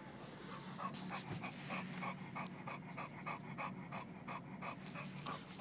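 English bulldog panting in quick, even breaths, about three a second, out of breath after a run. A steady low hum from the moving car runs beneath.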